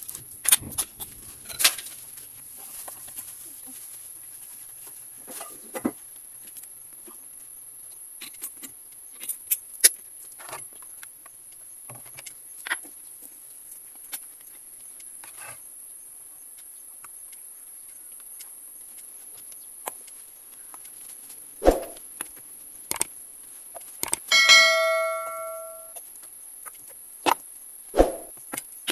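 Plastic and glass bottles handled and set down on a bamboo-slat floor: scattered clicks and knocks over a faint steady high hiss. About 24 seconds in, a single bell-like ding rings and dies away over a second or so.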